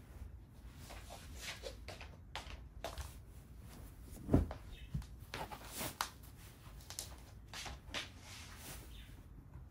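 Household handling sounds: scattered rustles and light knocks, with one sharp, much louder thump about four and a half seconds in.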